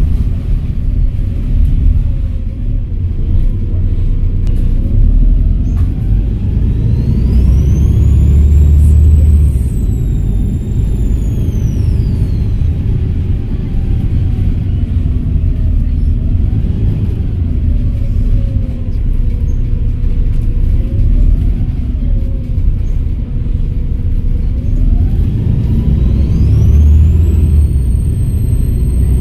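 Volvo B7RLE bus's six-cylinder diesel engine running under load, with a deep rumble and the engine note rising and falling through the Voith automatic gearbox. Twice the turbocharger whistles, a high whine that climbs and then falls away, the second time near the end.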